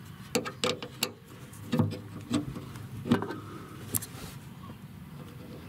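Allen wrench turning the small screw on a backup camera bracket: a few scattered light metallic clicks and knocks of the tool and the fittings.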